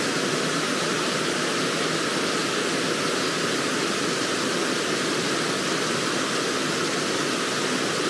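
Zengoro Falls, a waterfall dropping into its plunge pool, giving a steady, even rush of falling water.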